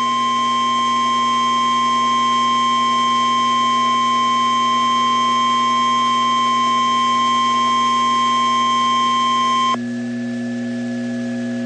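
NOAA Weather Radio 1050 Hz warning alarm tone, the attention signal for a tornado warning: one steady high tone held for about ten seconds, then cutting off abruptly, leaving the receiver's steady hum.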